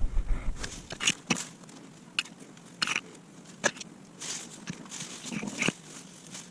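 Sped-up garden work at a potato harvest, played at four times speed: an irregular string of sharp clicks and knocks with short rustling noises between them.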